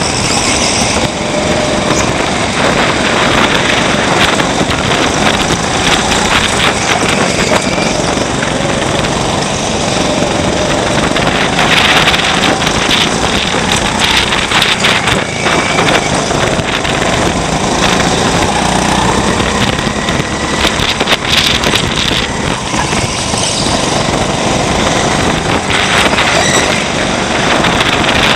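Onboard sound of a 200cc Honda rental kart's engine at racing speed, its pitch rising and falling as the driver accelerates and lifts through the corners.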